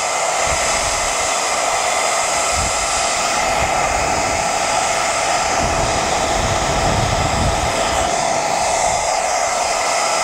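Handheld hair dryer running steadily, an even motor whine over the rush of air, blowing on lace laid over fitting gel to dry the gel until it turns tacky. Low rumbles come and go as the airflow buffets the clip-on microphone.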